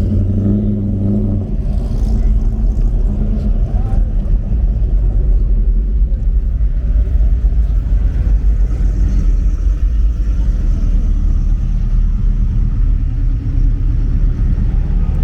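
A 1994 Chevrolet Caprice driving, its engine and road noise making a steady low rumble, with a short steady hum in the first second and a half.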